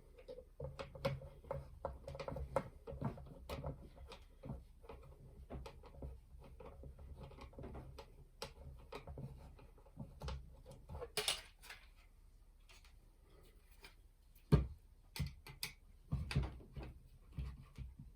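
Small screws being driven into plastic model-kit parts with a screwdriver: a run of light, irregular clicks and ticks from the screwdriver and the parts being handled, with a sharper knock about two thirds of the way through and a few more knocks near the end.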